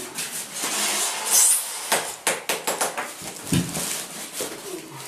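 Plastic packaging bag crinkling and rustling as it is pulled over polystyrene foam monitor packaging, with a dull thump of the foam block about three and a half seconds in.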